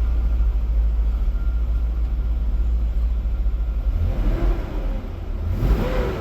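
Swapped-in LS V8 engine running with a steady low rumble, with two brief throttle blips that rise and fall in pitch in the last couple of seconds. The owner says it has a miss and that its air-fuel mixture is not yet tuned.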